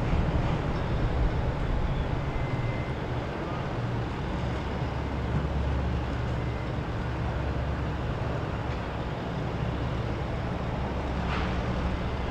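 Motorboat engines running with a steady low rumble as boats pass on the water.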